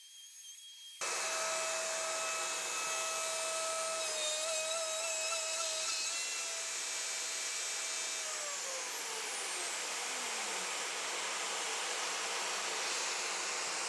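Dust-collection vacuum and router motor switch on with a sudden start about a second in. Together they make a steady rushing noise with a high motor whine. The whine wavers for a moment, then glides down over two or three seconds from about eight seconds in, as the router motor spins down, while the vacuum's rushing keeps on.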